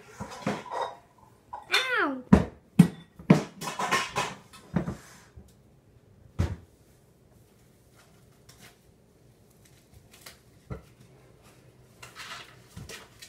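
A series of sharp knocks and bumps from toys being handled and moved on a table, bunched in the first half, followed by a quiet stretch and some faint rustling near the end.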